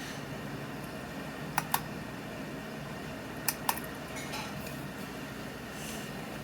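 Steady background hum with two pairs of sharp, short clicks about two seconds apart, each pair's two clicks in quick succession.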